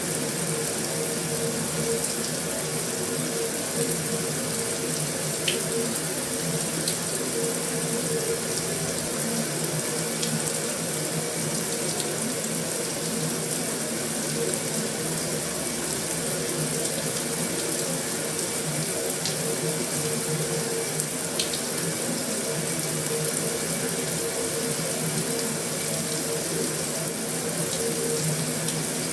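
Heavy rain on a metal roof: a steady, dense hiss of drops, with a few sharper single drop ticks here and there.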